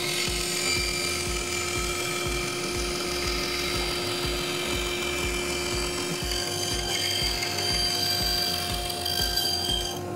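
Grizzly bandsaw running, its blade cutting a curved shape out of a wooden board, with a steady motor hum under the hiss of the cut.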